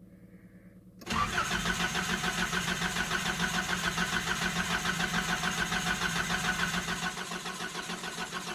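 Nissan 720 pickup's engine being cranked on the starter from cold, starting about a second in with an even rhythmic chug of about five beats a second that goes on without the engine catching. It cranks but won't start, which the owner puts down to a failing fuel pump.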